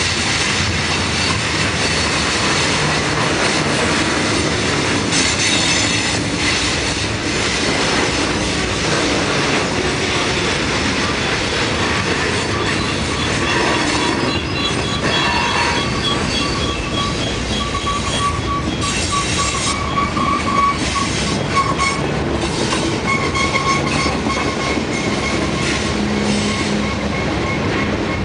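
Freight train of tank cars and covered hoppers rolling past: a steady rumble and clatter of wheels on rail. From about halfway through, high wheel squeal sets in, coming and going.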